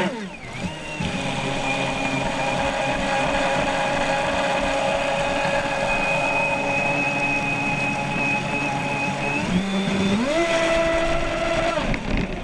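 Proboat Miss Geico 29 RC catamaran's 1500kv brushless motor whining at speed, over the rush of water along the hull, heard from a camera mounted on its deck. The whine rises in pitch at the start, holds steady, then climbs again about ten seconds in and settles.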